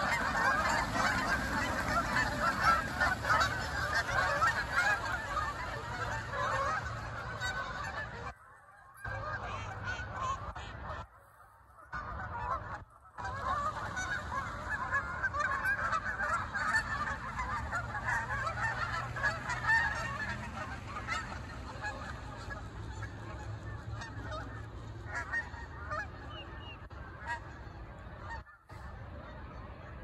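A large flock of geese honking continuously, many calls overlapping, loudest in the first part and growing fainter toward the end. The sound cuts out suddenly for a moment a few times partway through.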